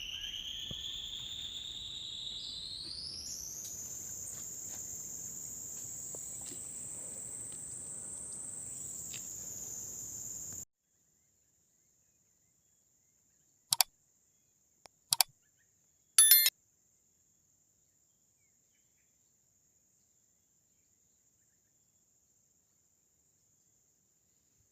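An insect's loud high buzzing whine, rising steadily in pitch, that cuts off abruptly about ten seconds in. After it, near silence with a faint steady high hum and three short sharp clicks.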